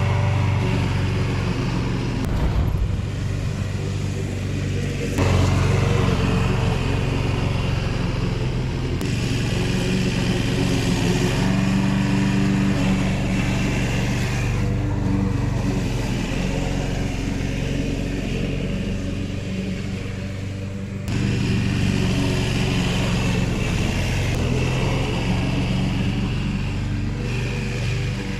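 Petrol walk-behind rotary lawn mower engine running steadily while mowing grass, its loudness stepping up and down abruptly a few times.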